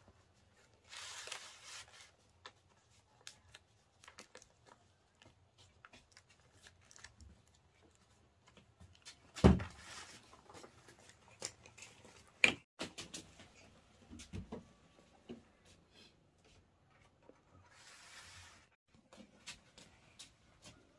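Handling noises with no speech: brief rustles, scattered light clicks and taps, a loud thump about nine and a half seconds in and a sharp knock about three seconds after it.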